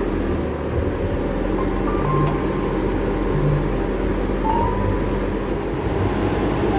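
Skid steer engine running steadily under work.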